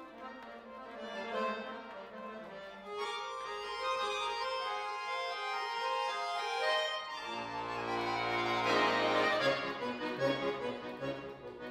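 Solo Cooperfisa concert accordion playing classical repertoire: a quiet, held passage that opens into a fuller melody about three seconds in. About seven seconds in, low bass notes come in under a sustained chord and the sound swells, then breaks into shorter, detached notes near the end.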